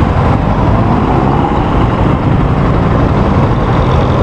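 Motorcycle engine idling with a steady low rumble at a stop, with city traffic passing by.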